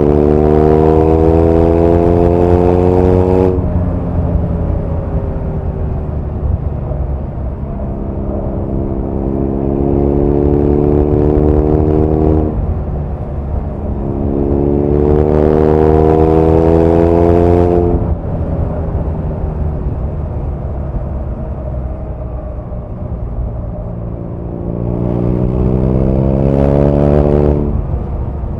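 BMW R nineT's 1170 cc boxer twin engine and exhaust, heard from the rider's seat while riding. Four times the engine note climbs steadily under acceleration for three to four seconds and then drops off sharply, with lower, steadier running in between.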